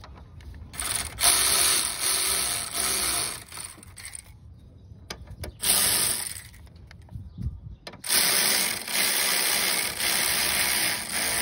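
Ratchet wrench tightening the alternator's mounting bolt, clicking in three spells with short pauses between: a long one early, a brief one in the middle and a long one near the end.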